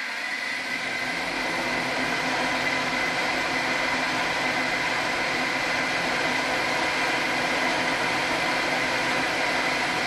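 Schaublin SV-51 milling machine running at 300 rpm while a Wohlhaupter UPA3 boring head takes a 0.25 mm boring cut in a steel puck. A steady machine noise with a constant whine.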